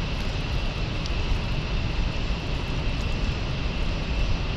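Steady rumbling engine noise with a faint high whine.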